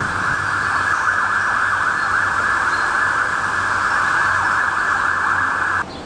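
A cicada chorus in native bush: a loud, steady, rasping buzz that cuts off suddenly near the end.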